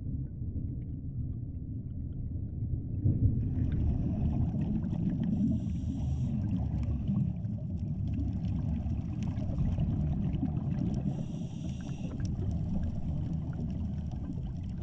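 Muffled underwater ambience picked up through a camera housing: a steady low rumble, with scuba divers' exhaled regulator bubbles rushing out twice, about six and about eleven seconds in.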